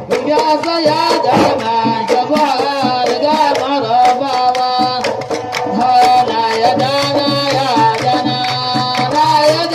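Music: a gliding melodic line over hand-drum percussion keeping a steady beat.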